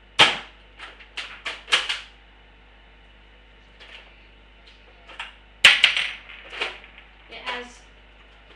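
Buzz Bee Rapid Fire Rifle toy dart blaster fired twice, about five and a half seconds apart: each loud snap is followed by a quick run of plastic clicks and clacks as the lever is pulled down to eject the shell and recock.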